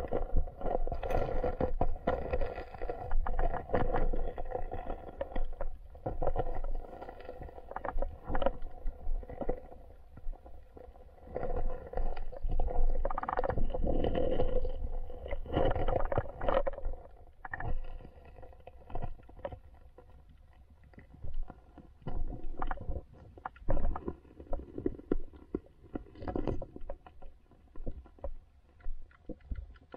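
Muffled underwater sound from an action camera held beneath a river's surface: irregular knocks, bumps and rumbles from moving water and the camera being handled. They come thick for about the first half and more sparsely after.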